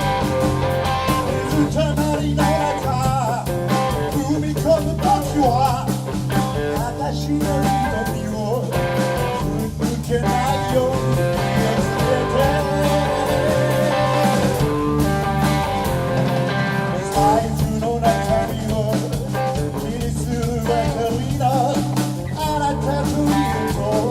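Live band playing a bluesy rock song, with guitar over a repeating bass line and a voice singing.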